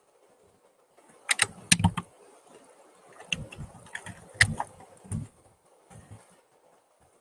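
Computer keys being pressed in irregular groups of a few clicks each, with a dull knock under each press. The loudest group comes between about one and two seconds in, and another runs from about three to five seconds in.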